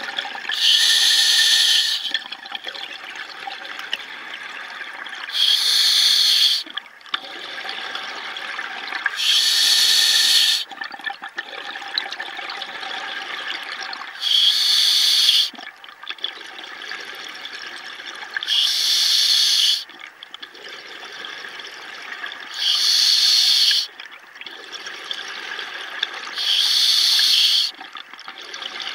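Scuba diver breathing through an open-circuit regulator, heard underwater: seven rushes of exhaled bubbles, each about a second and a half long and about four seconds apart, with a fainter hiss between breaths.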